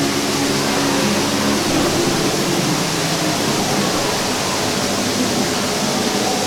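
Steady rushing water, an even noise that holds its level throughout.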